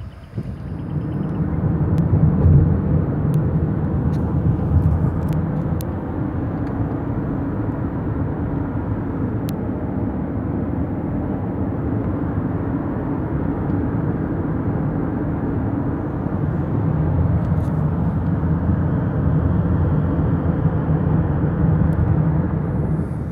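Steady road and engine noise heard inside a moving car's cabin, a continuous low hum with a few faint clicks.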